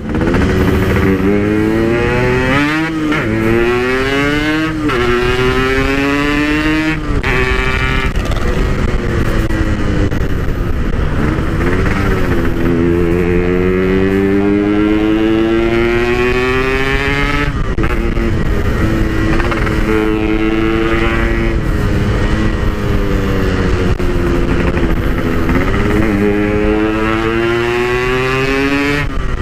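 Yamaha RX-King two-stroke single-cylinder engine with a PK1 aftermarket exhaust, accelerating under load: its pitch climbs in long sweeps and drops back at each gear change, several times over.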